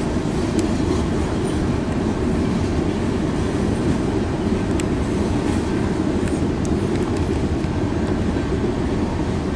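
Slow freight train's covered hopper cars rolling past, steel wheels on the rails making a steady rumble with a few faint clicks.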